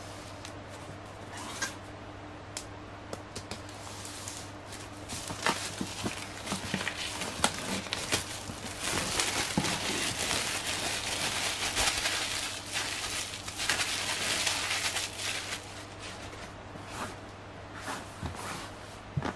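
Clear plastic shrink-wrap being peeled and pulled off a cardboard tablet box by hand, crinkling and crackling, loudest in the middle stretch. A few light taps and knocks from handling the box come before and after it.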